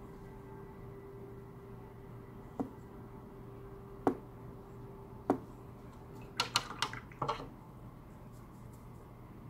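A few light, separate clicks and taps, then a quick run of several clicks about six and a half seconds in, over a faint steady hum.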